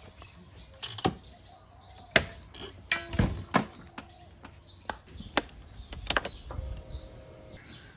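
Sharp metal clicks and knocks as a Honda PCX scooter's centre stand is footed down and the scooter is rocked up onto it, the heaviest a deep clunk about three seconds in. About six seconds in come a pair of quick clicks as the ignition key goes into the lock and is turned on.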